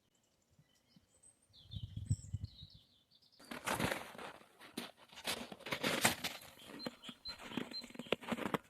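Dense crackling and rustling noise that starts about three and a half seconds in and keeps going. Faint high bird chirps come before it, and a few more come near the end.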